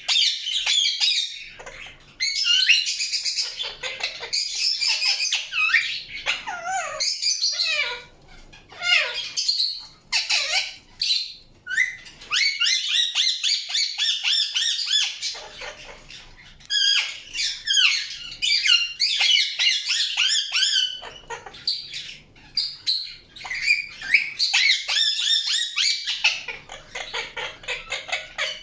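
Indian ringneck parrot chirping and squawking in fast runs of shrill notes, broken by short pauses.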